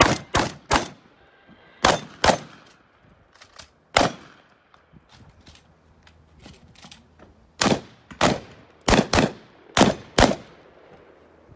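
Shotgun firing about a dozen shots in quick doubles and short strings, with pauses of a second or more between groups.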